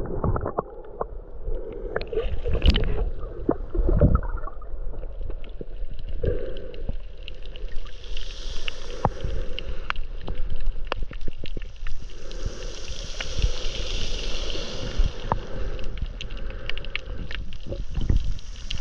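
Shallow seawater sloshing and gurgling at the shoreline, the wash swelling and easing every few seconds, with scattered sharp clicks.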